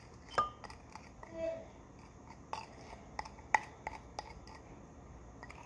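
A spoon tapping and clinking lightly against a glass beaker, a dozen or so faint scattered clicks, as a sticky gel mixture is scraped off it into the water.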